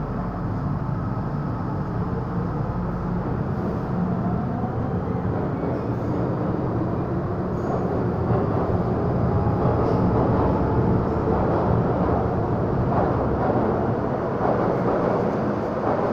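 MTR M-Train electric multiple unit pulling out of the station, its motor whine rising in pitch as it picks up speed, over a growing rumble of wheels on rail.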